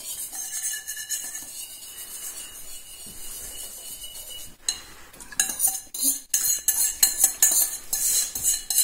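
A whisk beating yogurt starter into a little milk in a bowl: a soft swishing at first, then, about halfway through, rapid clinks of the whisk against the bowl, about three strokes a second.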